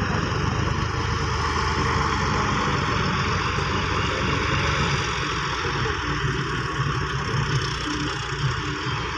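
Heavy machinery engine running steadily at low revs.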